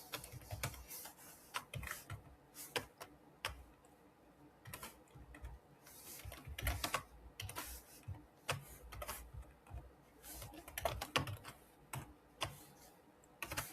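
Computer keyboard typing: irregular keystrokes in short runs separated by pauses.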